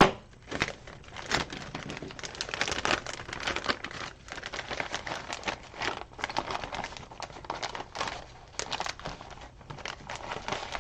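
Plastic bag crinkling and rustling as it is opened and handled, with small clicks of light wooden pieces knocking together.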